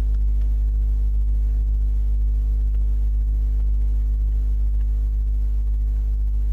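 Steady low electrical hum, the mains hum of the recording setup, with a stack of evenly spaced overtones. A few faint keyboard clicks come through as a name is typed.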